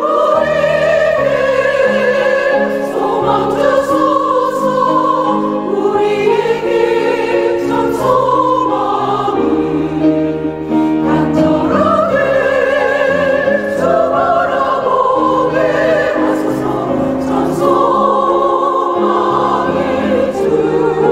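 Church choir singing a Korean sacred anthem in several voice parts, long held notes with vibrato.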